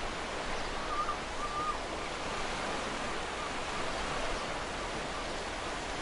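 Ocean surf washing steadily onto a sandy beach, an even rushing noise with no distinct breaks. About a second in, a faint short bird call rises briefly above it.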